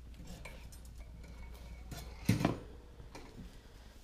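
Metal wire exercise-pen panel clinking and rattling as it is handled and moved, a series of light clicks with a louder clatter about two seconds in.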